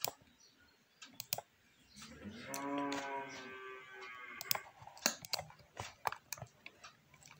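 Scattered computer clicks: a few near the start and a run of them in the second half. In the middle, a held pitched sound lasts about two seconds.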